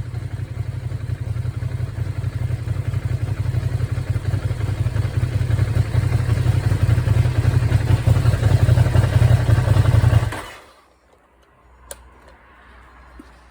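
Ducati Streetfighter V2's 955 cc Superquadro twin-cylinder engine running steadily at idle through its stock exhaust, then switched off about ten seconds in, the sound cutting off quickly. A faint click follows.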